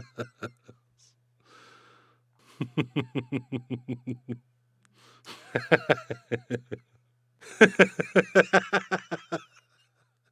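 Male laughter in three bouts of quick, rhythmic "ha-ha" pulses, about six a second. A breathy gasp comes between the tail of one laugh at the start and the first full bout.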